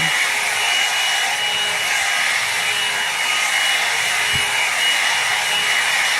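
Hand-held hair dryer running continuously: a steady rush of blown air with a thin, steady high whine from the motor.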